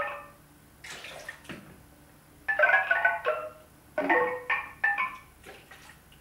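Synthesized interactive sonification driven by a sensor-equipped ladle moving in a bowl: short clusters of ringing, mallet-like pitched tones in three bursts, with a brief hiss about a second in.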